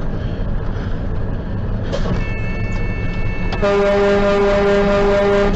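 Big rig's air horn sounding a long, steady blast that starts suddenly about three and a half seconds in, over the truck's engine and road rumble. It is a warning to clear the road, sounded because the truck's brakes have failed. A fainter high tone comes shortly before it.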